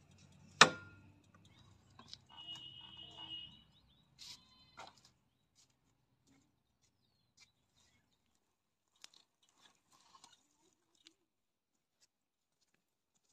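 A Hero motorcycle's engine idling faintly, with one sharp clack about half a second in; the engine stops about four seconds in, leaving only a few light clicks.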